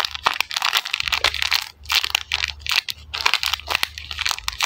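Clear plastic packaging bag crinkling and crackling as the mini squishy inside it is squeezed and turned in the hands, a dense run of irregular crackles.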